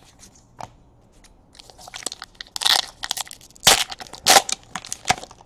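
A trading card pack wrapper being torn open and crinkled in several short, sharp bursts, with faint card handling before it.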